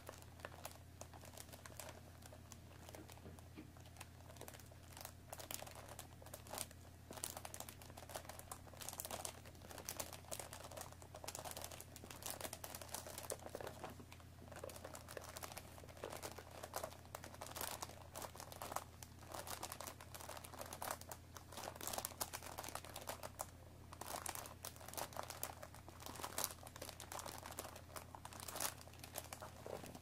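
Long fingernails scratching and tapping on a cellophane-wrapped cardboard tea box, the wrapping crinkling under many quick, irregular strokes. The strokes are busier in the second half.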